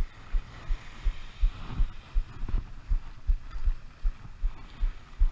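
Footsteps walking on beach sand, heard as dull, regular low thuds about three a second, with a faint hiss of wind or surf behind them.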